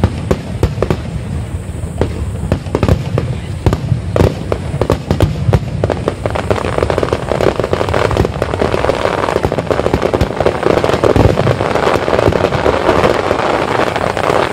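Aerial fireworks bursting in quick succession. About halfway through, the bangs thicken into a dense, continuous roll of bursts.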